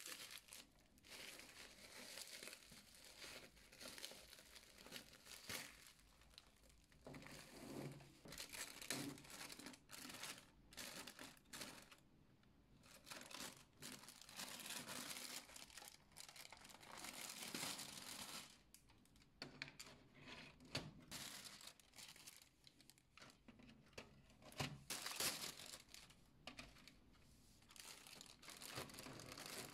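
Faint plastic packaging crinkling and tearing in irregular bursts as it is pulled off a stack of clear plastic CD cases.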